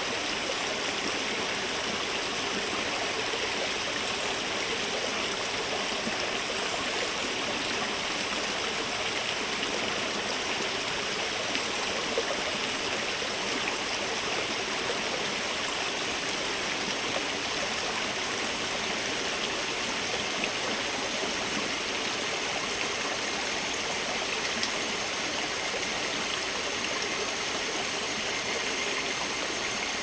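Small stream running steadily, a continuous rush of water. It is overlaid with a copy of the same stream sound EQ-boosted at the peak frequencies of a higurashi cicada call, which adds several faint steady high tones over the rush.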